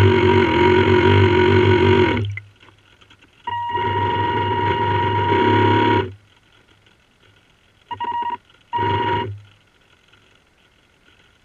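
RC model boat's drive motor whining in bursts as the throttle is opened and closed: about two seconds of running, a cut, about two and a half seconds more, then two short blips of half a second each near the end.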